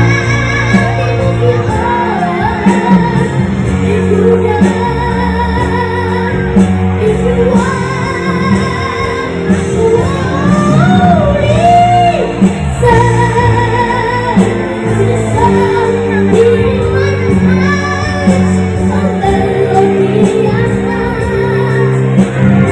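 A child singing a melodic song with vibrato over backing music.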